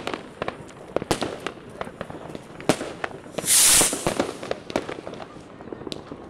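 New Year's fireworks and firecrackers going off all around: a continual, irregular run of sharp bangs and pops at varying distances, with a loud half-second hissing burst about three and a half seconds in.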